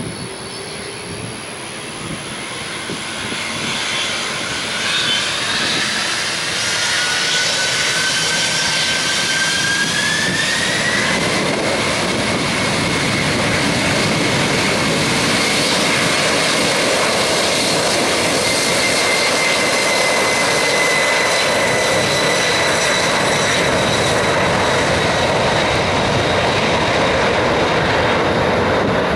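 McDonnell Douglas MD-11F freighter's three jet engines spooling up for takeoff. A whine rises in pitch over a few seconds, then holds steady over a loud roar as the takeoff roll gets under way.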